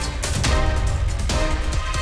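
Outro theme music with a deep bass and a regular beat.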